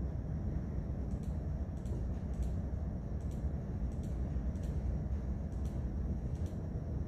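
Steady low rumbling room noise with about ten faint, sharp clicks scattered through it, computer mouse clicks as the list on screen is worked through.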